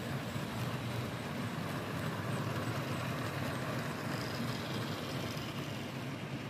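Model streamlined steam locomotive, a Rivarossi Hudson rebuilt as the Mercury, running past with its passenger cars: a steady rumble of wheels on the rails and a motor hum. A faint high whine rises about four seconds in.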